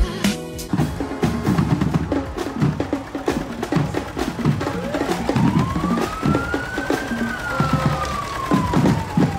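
Live parade sound: drums play irregular strokes. About five seconds in, a siren begins a slow wail, rising for about two seconds and then falling. A recorded Christmas song cuts off just after the start.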